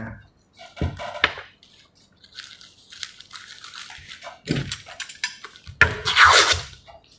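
Rustling and crinkling of bouquet wrapping paper and ribbon being handled while a ribbon is tied on, in scattered small clicks and short bursts. The loudest burst comes about six seconds in.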